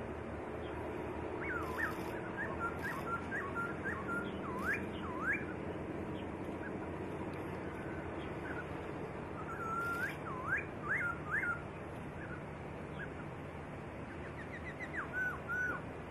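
Black-throated laughingthrush singing in three bursts of clear whistled phrases, made of quick up-and-down sweeping notes. The bursts come about a second and a half in, again around ten seconds, and near the end, over a steady background hiss.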